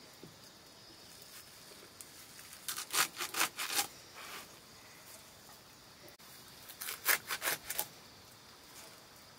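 A small curved knife chopping a bundle of green leaves against a wooden block. There are two runs of quick cuts, one about three seconds in and one about seven seconds in, each lasting about a second.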